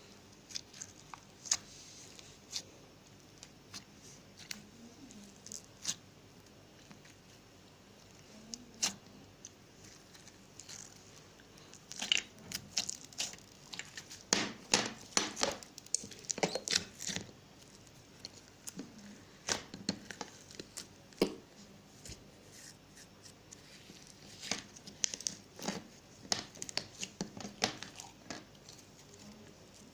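Homemade slime being squeezed and stretched by hand, making clicky crackling pops that come in bursts, thickest in the middle of the stretch and again near the end.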